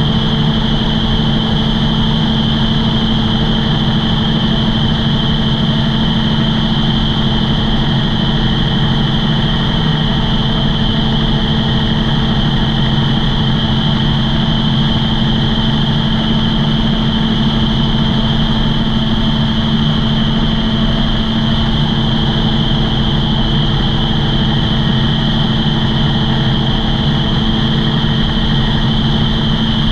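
Gyrocopter engine and propeller running steadily in flight, heard from on board: an even, unchanging drone at constant power.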